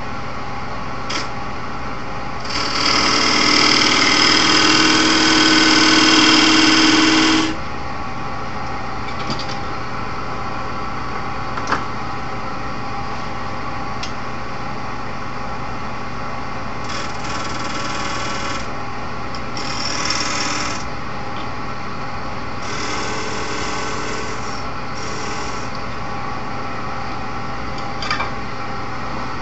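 Wood lathe running steadily while a turning tool cuts into the spinning wood to put a V groove in its centre: one loud cut lasting about five seconds near the start, then three shorter, lighter cuts in the second half.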